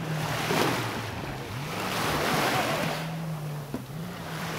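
Waves splashing and wind rushing in surges, over a steady low engine hum.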